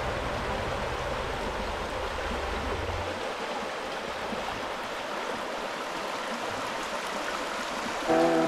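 A small woodland brook rushing steadily over stones. Background music comes in just before the end.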